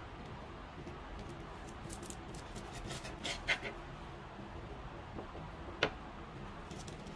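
A knife cutting through a crisp toasted tortilla wrap on a wooden board: a run of small crackles and scrapes building to a louder crunch about three and a half seconds in, then a single sharp tap near six seconds.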